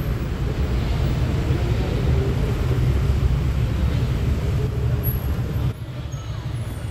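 Honda Click 125i scooter on the move: a steady low rumble of engine, road and wind noise, which dips briefly near the end.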